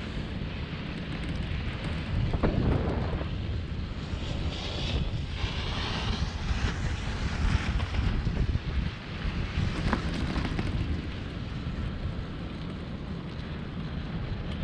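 Wind buffeting the microphone of a skier moving downhill, with the hiss and scrape of skis sliding and turning on hard-packed groomed snow, swelling several times.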